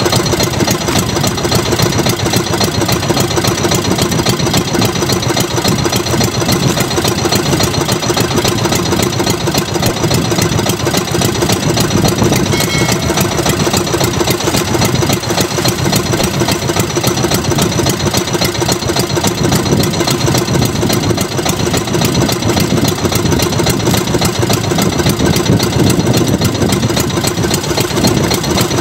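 Motorized outrigger boat's engine running steadily at an even speed, with a rapid, unbroken firing rhythm.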